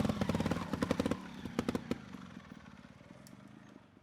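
Motorcycle engine running hard with a rapid rattling beat, loud for about the first second and then fading away.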